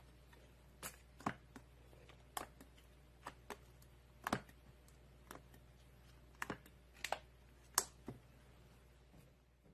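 Slime being squeezed and stretched by hand, giving off irregular sharp clicks and pops, about a dozen of them, a few louder than the rest.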